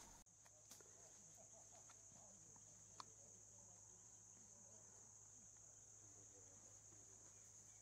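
Near silence with a faint, steady, high-pitched insect drone, with one faint click about three seconds in.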